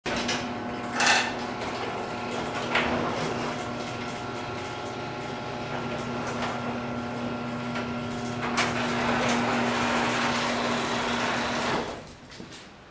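Electric garage door opener raising a sectional garage door: a steady motor hum with a few clanks from the door, stopping about twelve seconds in as the door comes fully open.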